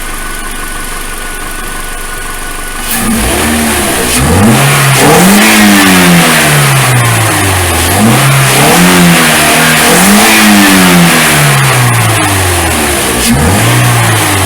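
A 2013 Toyota Corolla S's 1.8-litre four-cylinder engine, fitted with a K&N Typhoon cold-air intake, idling steadily for about three seconds, then revved about five times, the pitch rising and falling back with each rev. The intake sound is super loud.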